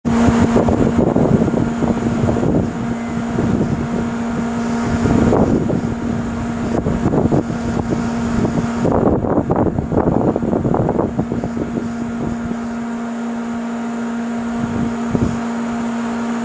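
Wind gusting against the microphone in low, irregular buffets, heaviest a little past the middle, over a steady mechanical hum with a few overtones, like an engine or generator running at the waterfront.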